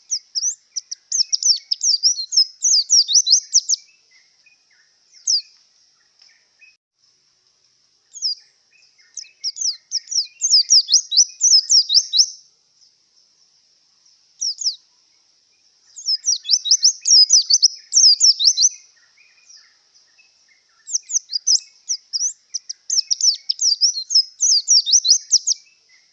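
White-eye (pleci) in breeding condition singing: four bursts of fast, high twittering song, each lasting a few seconds, with short pauses between them.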